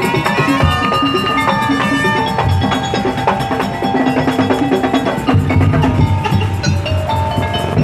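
Madurese daul ensemble playing: a steady beat of drums and gongs under a busy melody of tuned percussion.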